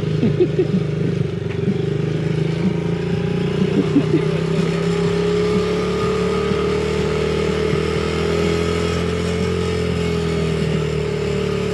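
A vehicle engine idling steadily, its pitch drifting slightly up and back down, with a few light clattering ticks in the first few seconds.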